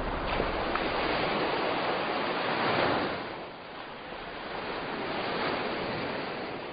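Sea waves washing onto a beach: a steady rush of surf that swells about three seconds in, eases off, then builds again.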